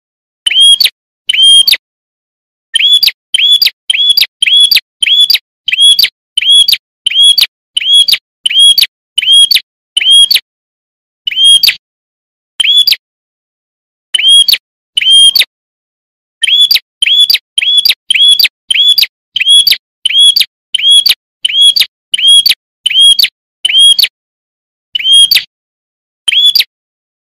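Prenjak (prinia) calling: one sharp, high chirp repeated at a steady, quick pace, a little under two a second, broken by a few short pauses.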